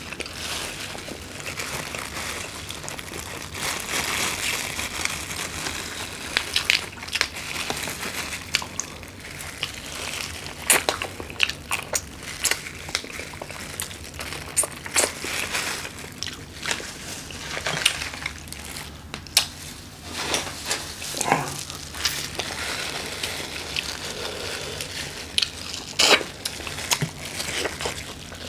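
Sauce-coated shrimp shells cracking and being peeled apart by hand, in irregular crunches and snaps, with the crinkle of disposable plastic gloves.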